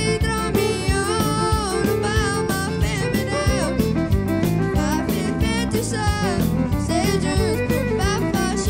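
Background music with a steady drum beat and a melody that slides in pitch.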